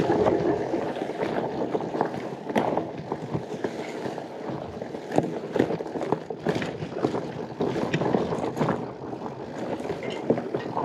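Pole Taiga fatbike riding over rough forest trail: a steady rolling rumble from the fat tyres with frequent irregular knocks and rattles.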